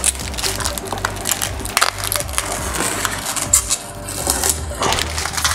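Protective plastic film being peeled off a flat-screen TV's screen and frame, crackling and crinkling irregularly.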